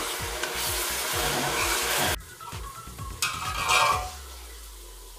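Food frying in hot oil in a pan, sizzling as it is stirred. The sizzle cuts off abruptly about two seconds in, comes back briefly, then dies down to a faint hiss.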